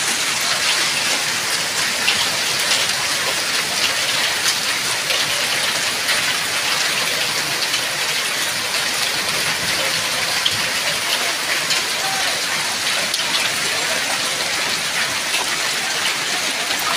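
Hail and heavy rain falling on wet pavement and puddles: a steady hiss with many small sharp ticks of hailstones striking.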